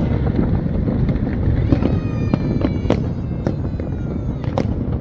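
New Year fireworks going off: a continuous rumble of bursts with many sharp cracks scattered through it. A faint whistling tone slowly falls in pitch from about two seconds in.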